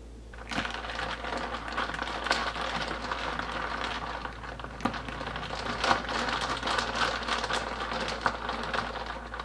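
A spoon stirring whipped coffee into iced milk in a glass: a steady wet crackling with frequent small clicks of ice and spoon against the glass, starting about half a second in.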